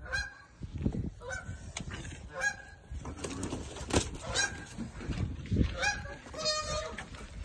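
Goose honking in a series of short calls about once a second, the defensive honking of a goose guarding its nest.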